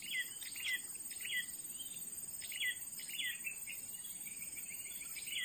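A wild bird calling repeatedly in a string of short, high chirps, each falling in pitch, irregularly spaced at about one or two a second.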